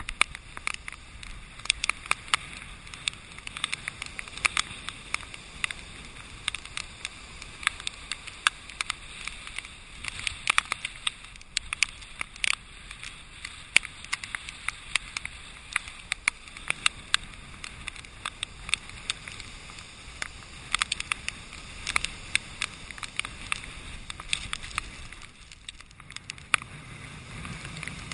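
Heavy storm surf and wind heard muffled through a GoPro HD's waterproof housing, with a steady wash of noise and many sharp ticks of rain and sea spray striking the case. A deeper rumble of surf comes up near the end.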